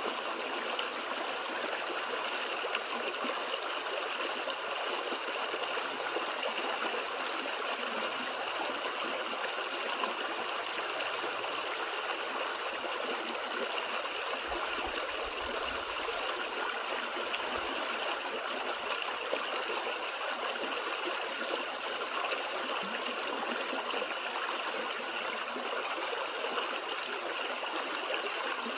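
A small creek running steadily over rocks, a continuous babble and trickle of flowing water.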